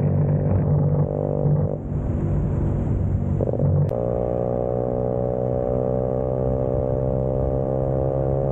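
Vespa scooter engine running while riding, with a steady engine note that changes abruptly about four seconds in.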